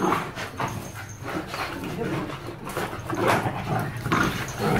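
Several dogs scuffling in a rough play-fight, making dog vocal sounds as they tussle.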